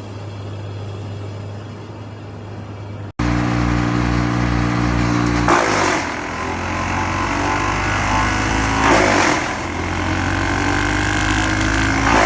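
Large wood chipper's engine running steadily. An abrupt cut about three seconds in makes it louder, and three short bursts of noise come a few seconds apart as wood goes through the chipper.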